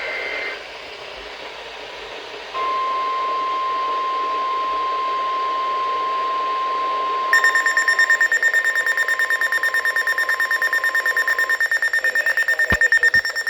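A NOAA Weather Radio warning alarm tone, a single steady 1050 Hz tone, starts about two and a half seconds in and holds for about nine seconds, the tone that heralds a broadcast warning. About halfway through, a shrill, fast beeping alarm of about five beeps a second joins it and keeps going until near the end, with two clicks just before it stops.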